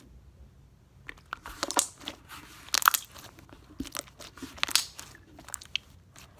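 Purple slime being squished and stretched by hand, giving off irregular small pops and crackles.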